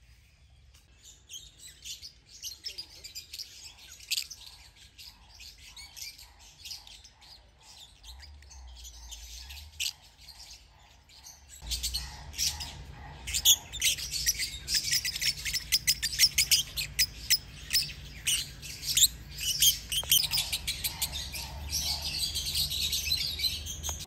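Birds chirping. About halfway in it becomes much louder: a flock of lovebirds chattering with dense, high-pitched chirps and squeaks.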